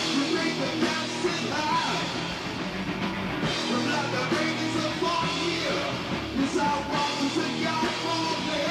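Live rock band playing, with vocals over the band.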